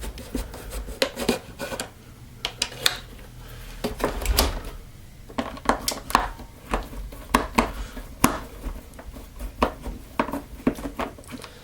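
Irregular clicks, taps and light knocks of plastic housing parts and a screwdriver being handled as a Miele S5210 vacuum cleaner is taken apart for a motor change.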